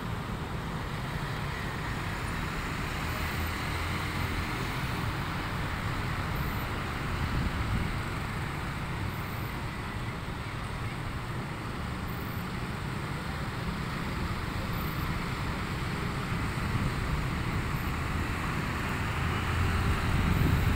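Street traffic: a steady hum of small motorcycle and scooter engines and tyres, with the odd car and light pickup truck passing. It swells as groups of riders go by, once about a third of the way in and again near the end, where it is loudest.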